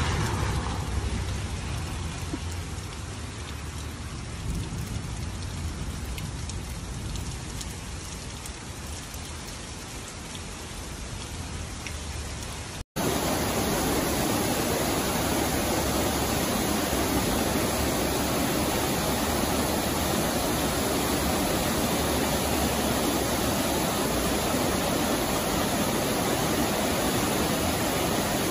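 Steady rain falling on a grassy yard and wet street. After a sudden cut about 13 s in, a louder, steady rush of floodwater pouring over a low weir.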